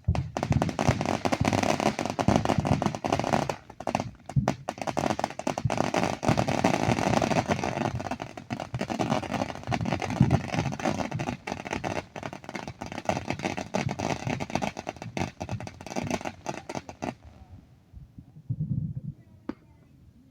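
A ground firework going off in a dense, rapid string of crackles and pops for about seventeen seconds, then stopping abruptly.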